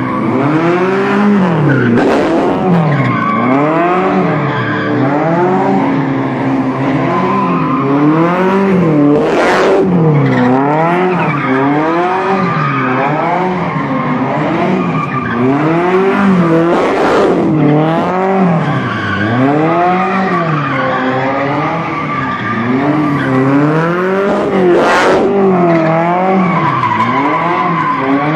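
Tofaş Doğan SLX car engine revving up and falling back over and over, about once every one and a half to two seconds, as the car is driven sideways with tyres skidding. Three brief sharp rushes of noise stand out, about eight seconds apart.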